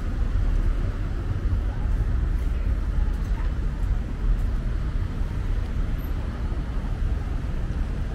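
City street ambience with a steady low rumble and no single sound standing out.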